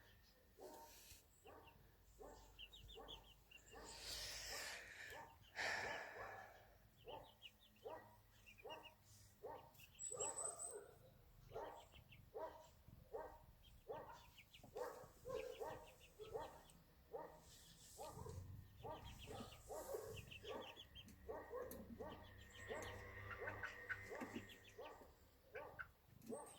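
Backyard poultry calling softly: a long run of short calls, about two a second.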